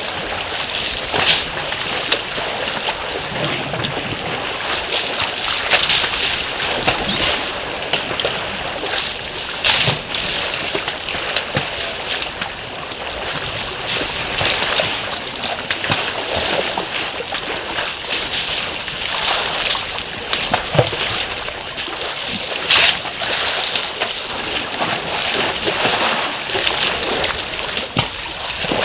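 African elephants splashing and sloshing in a shallow waterhole as they bathe and drink, with a sharper splash every few seconds.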